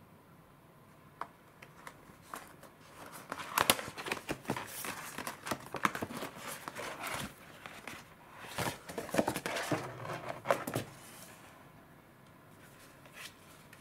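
Clear plastic packaging crinkling and crackling as it is handled and pulled off a plastic candy container, in two stretches of dense crackles after a few small clicks.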